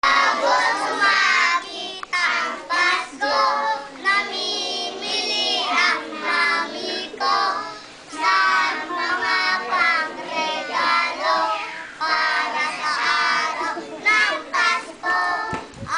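A group of young children singing a Christmas carol together in unison, in continuous sung phrases.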